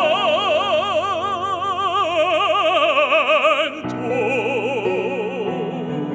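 Operatic singing: a held note with a wide, slow vibrato, moving to a lower held note about four seconds in, over accompaniment.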